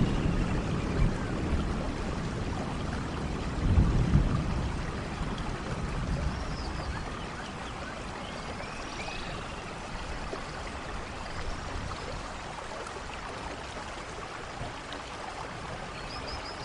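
Steady rain falling, with a low rumble of thunder at the start and a louder one about four seconds in, then only the even hiss of the rain.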